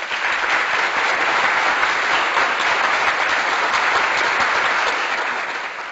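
Crowd applause, a dense even clatter of many hands clapping that fades out near the end.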